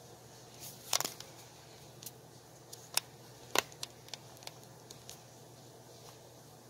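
Paper stencil strips being handled and pressed down on a tabletop: a few short, light taps and clicks, the loudest about three and a half seconds in, with faint paper rustling.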